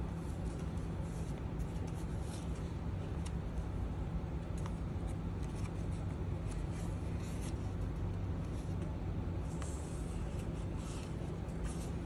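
Paper pages of a handmade junk journal rustling and brushing against each other as they are turned by hand: scattered short, soft rustles, busiest near the end, over a steady low hum.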